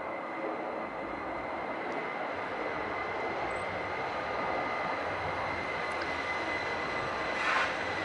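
Hudson-Bergen Light Rail tram, a Kinki Sharyo electric light-rail vehicle, approaching and passing close on its rails, a steady running noise growing slowly louder. A brief hiss comes near the end.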